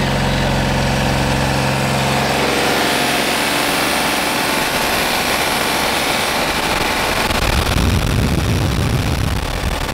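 New Holland tractor's diesel engine idling, heard up close at the engine bay. It starts as a steady hum, turns rougher and noisier about two and a half seconds in, and gains a heavier low rumble near the end.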